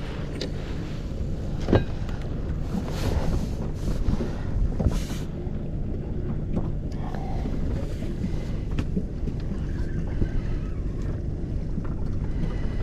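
Steady low rumble of wind and water around a small fishing boat, with scattered clicks and knocks; the sharpest knock comes about two seconds in.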